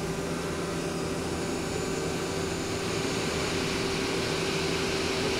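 Spindle of a Mazak Quickturn Nexus 250-II CNC turning center running free at about 1,500 RPM, the empty hydraulic chuck turning without cutting: a steady machine hum with a couple of steady tones, growing slightly louder about halfway through.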